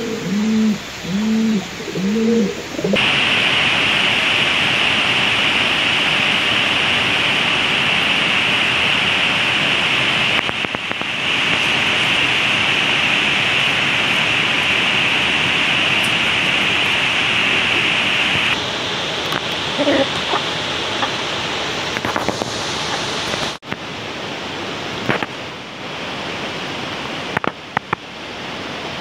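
Domestic pigeons cooing, a quick run of repeated coos, stopping about three seconds in. A loud, steady hiss then takes over for most of the rest.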